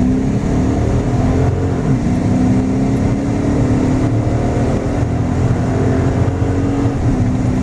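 2012 Dodge Charger Pursuit's 5.7-litre Hemi V8 accelerating hard, revs climbing, dropping as the automatic transmission upshifts about two seconds in, then climbing again to a second upshift near the end.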